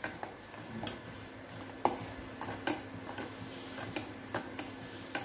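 Metal spoon scraping and clicking against a steel saucepan as thick milk with crushed nuts is stirred while it reduces for rabri: light, irregular clinks, with a louder one about two seconds in.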